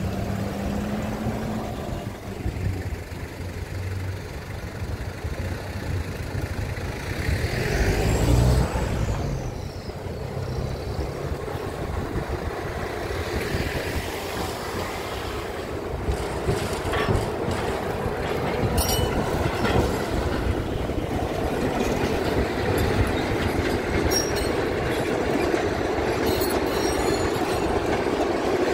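A narrow-gauge sugar cane train running, its diesel locomotive and wagons rumbling and rattling on the rails, growing louder over the second half.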